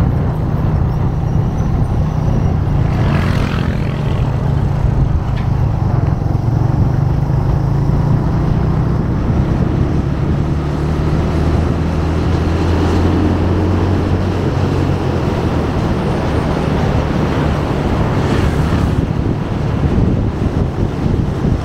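Motorcycle engine running steadily while riding at road speed, with wind and road noise over it; the engine note shifts lower about halfway through. Two brief rushes of noise come through, about three seconds in and near the end.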